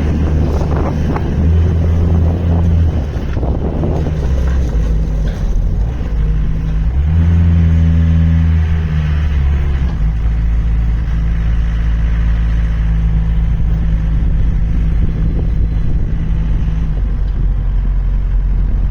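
Gehl R190 skid steer loader's diesel engine running, with the engine speed rising and falling as the machine works, loudest about seven to nine seconds in, then settling to a steady run.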